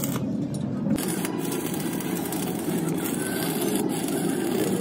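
Stick (arc) welding: the electrode's arc crackling and hissing steadily as a bracket is welded to a steel beam, dropping out briefly just after the start. A steady low drone runs underneath.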